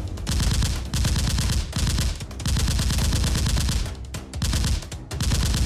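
Rapid automatic gunfire, a machine-gun-style sound effect, in several sustained bursts with short breaks between them.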